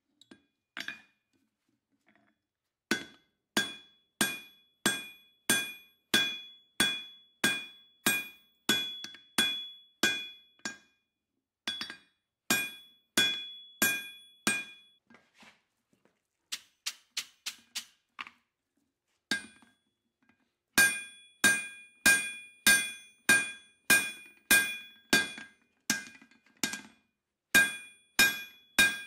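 Hammer blows on red-hot steel on an anvil, about one and a half a second in runs, each blow followed by the anvil's bright ring. There is a pause near the start and another about two-thirds through, with lighter blows in between.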